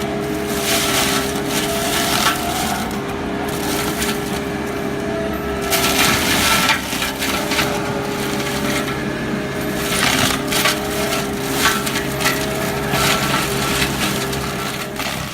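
Fecon Bull Hog FMX36 excavator mulching head grinding wood, its spinning rotor giving a steady drone under repeated bursts of crushing and splintering wood. The sound cuts off suddenly at the end.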